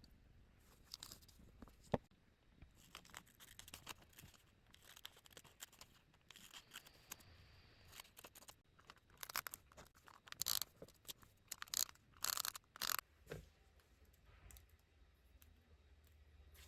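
Paper and stickers being handled at a desk: a series of short peeling, tearing and rustling sounds, busiest about ten to thirteen seconds in, with a sharp tap about two seconds in.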